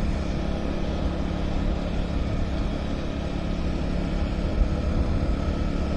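Motorcycle engine running steadily at cruising speed, with a low hum and a constant rush of wind and road noise.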